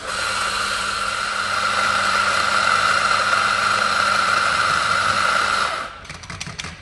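Electric espresso grinder motor grinding coffee beans straight into a portafilter under a dosing ring: a steady whir that cuts off about six seconds in, followed by a few light clicks.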